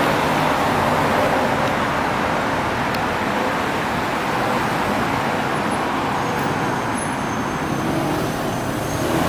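Road traffic noise: a steady rush of tyres and engines on the road that slowly fades. A faint high squeak comes in about two-thirds of the way through.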